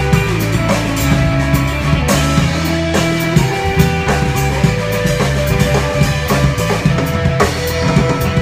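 Live rock band playing an instrumental passage: upright bass loud and close, with electric guitar and a drum kit keeping a steady beat of drum and cymbal hits.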